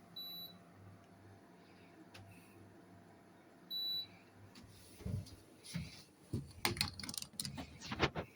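Two short high electronic beeps about three and a half seconds apart from a Carrier air conditioner unit, the kind it gives when it takes a remote command, over a faint steady hum. In the last few seconds come irregular clicks and clattering handling noise.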